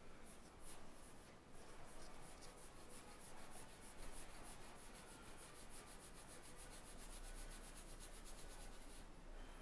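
Pencil scratching on drawing paper in quick back-and-forth shading strokes, several a second, faint, stopping shortly before the end.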